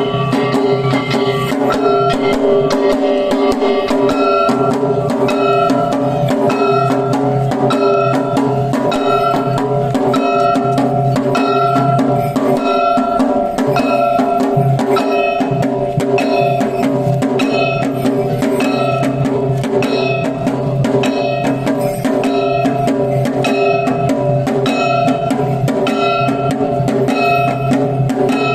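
Lion-dance accompaniment: drums beaten in a fast, steady rhythm, with metal gongs struck over them, their short ringing tones repeating at an even pace.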